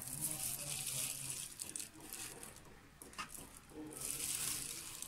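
A steel spoon scooping flour and tipping it into a ceramic bowl: two spells of soft scraping and pouring hiss, with a light click of the spoon a little past the middle.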